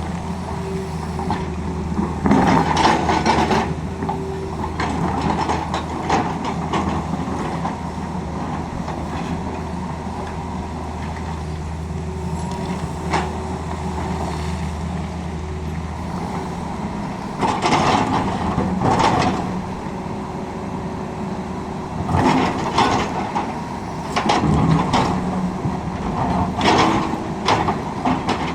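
Tata Hitachi excavator's diesel engine running steadily, with several louder rough bursts of noise while it works, about two to three seconds in and repeatedly in the last ten seconds; a deep hum underneath drops out about halfway through.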